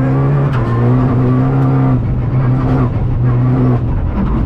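Renault Clio Rally5's turbocharged three-cylinder engine under hard load, heard from inside the cabin, holding a steady high note that dips briefly a few times, over road noise.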